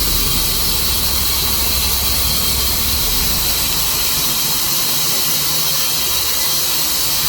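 Tru-Cut bandsaw mill cutting through a juniper log: the blade gives a steady high hiss and squeal over the low hum of the mill's motor, which thins out about four seconds in. It is the cutting noise that spraying the cut only partly quiets.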